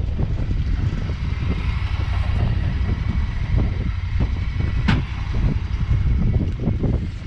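Side-by-side UTV driving over sand, with heavy wind buffeting the microphone as a loud, uneven rumble. There is a sharp click about five seconds in.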